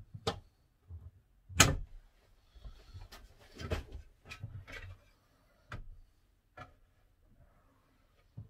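Overhead campervan cabinet door of laminated furniture board being shut and opened again: a string of knocks and clicks from the door, its push latch and hinges, the loudest about a second and a half in.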